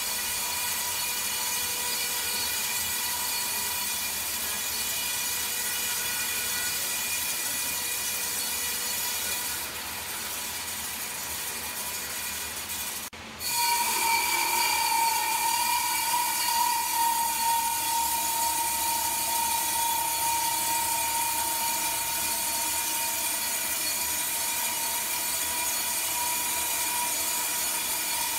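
Sawmill machinery running without cutting: a steady mechanical hum with a high whine. It dips slightly around ten seconds in, cuts out for a moment at about thirteen seconds, then comes back louder with a stronger whine.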